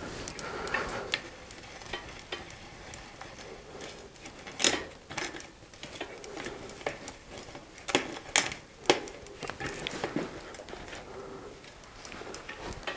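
Light clicks, taps and rattles of hands working on a bicycle's front wheel and brake, with several sharper knocks around the middle.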